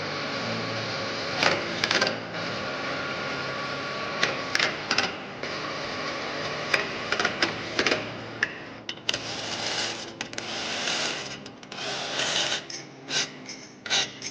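A small power tool running steadily for about eight seconds with a fixed whine, mixed with sharp clicks and knocks of metal parts being handled. The running then breaks up into shorter spells among more clatter.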